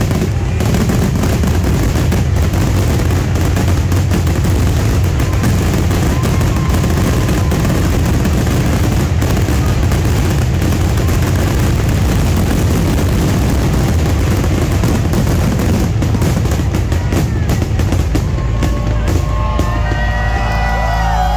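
A dense barrage of aerial fireworks: rapid bangs and crackling shell bursts, with music underneath. The bangs thin out over the last few seconds, and whistles and whoops from the crowd start near the end.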